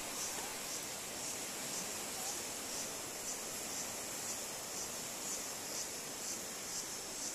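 Forest insects buzzing: a steady, thin, high-pitched drone that pulses faintly at a loose regular rate over a quiet hiss.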